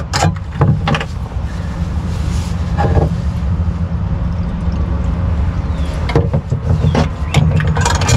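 A steady low rumble, with knocks and rustles of a metal can and a cloth being handled: a few sharp knocks near the start, around the middle and in the last two seconds.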